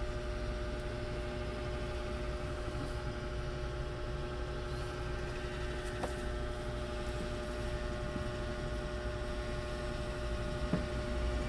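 Steady machine or electrical hum with a low rumble, broken by a couple of faint clicks.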